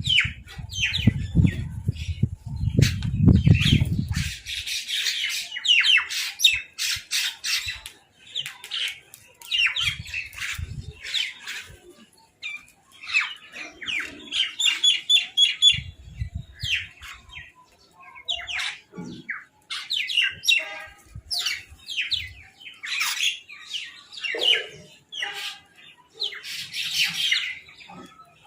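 Crows squabbling over food, giving many short, harsh squawking calls in quick, overlapping succession. A low rumble sits under the first four seconds.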